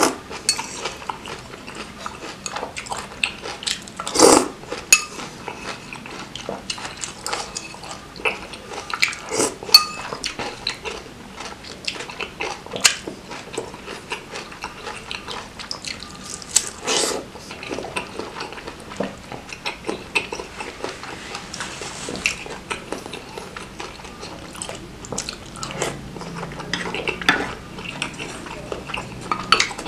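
Metal fork and spoon clinking and scraping against ceramic bowls, with a few sharper knocks, amid close-miked chewing of bakso meatball soup.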